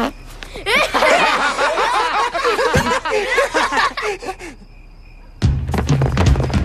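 Several boys laughing hard together for about four seconds. Music with a low bass line comes in about five seconds in.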